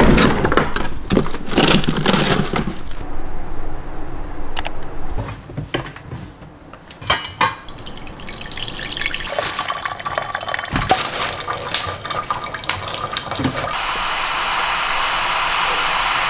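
A refrigerator drawer pulled open and food packages handled with clatter and rustling, then a kitchen tap running into a stainless-steel pot. In the last few seconds water from the tap sprays steadily onto lettuce in a plastic basket in the sink.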